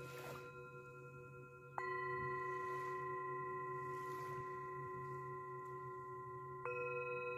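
Chime-like breathing-cue tones pacing six breaths a minute. A held tone fades, a different tone comes in suddenly about two seconds in and holds steady for about five seconds, and near the end the first tone sounds again, each change marking the switch between breathing in and breathing out.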